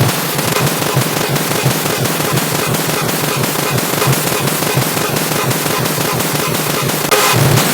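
A car horn beep stacked on itself a huge number of times, merged into a loud, dense, distorted noise full of rapid clicks, with no single horn note left. It jumps louder about seven seconds in.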